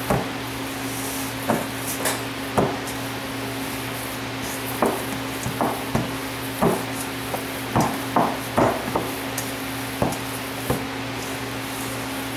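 Bare hands squishing and kneading raw ground-meat meatloaf mixture in a stainless steel bowl: irregular wet squelches and soft knocks against the bowl, over a steady low hum.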